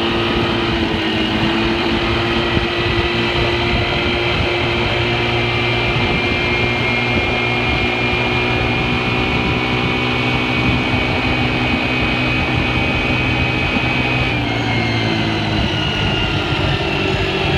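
Honda 300EX ATV's single-cylinder four-stroke engine running at steady revs, with a shift in pitch about fourteen seconds in.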